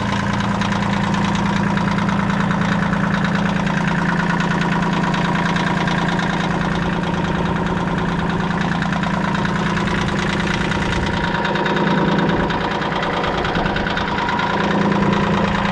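New Holland TC21 compact tractor's three-cylinder diesel engine idling steadily.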